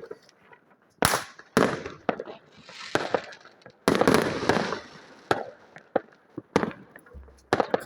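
Firecrackers going off: about six sharp bangs at irregular intervals, with a longer hissing crackle around the loudest bang, about four seconds in.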